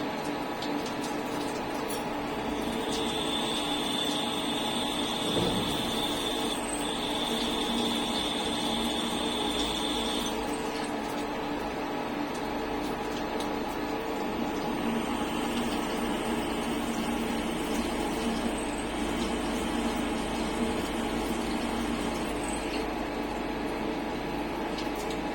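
CNC turn-mill centre running a machining cycle: a steady hum of spindle and drives. A high whine sets in about three seconds in and stops near ten seconds, and a fainter high tone returns later.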